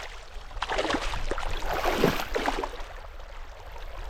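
Water splashing and sloshing in a rough, irregular run that is loudest about two seconds in.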